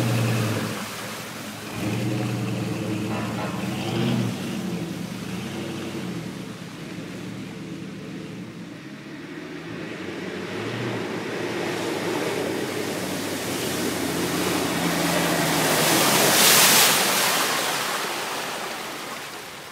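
An off-road 4x4 driving up a muddy track and past close by, engine running and tyres churning through mud and water. The noise builds to its loudest about three-quarters of the way through as it passes, then falls away. At the start, the engine of another vehicle that has just gone by fades out over the first few seconds.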